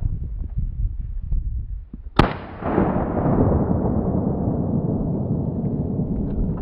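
A single sharp gunshot about two seconds in, followed by a long rumbling roll of noise that slowly dulls and fades.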